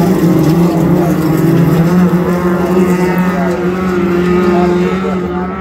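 Autograss race car engines running at high revs as the cars lap a dirt track, a steady loud engine note with a slightly wavering pitch that fades near the end.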